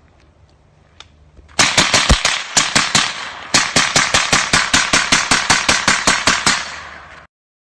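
A gun fired in rapid succession, a string of some two dozen shots at about five a second, starting about a second and a half in and cutting off suddenly near the end.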